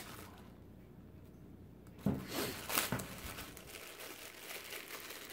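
Thin clear plastic bag crinkling and tearing as it is cut and pulled open by hand. It is quiet at first, and the rustling starts about two seconds in.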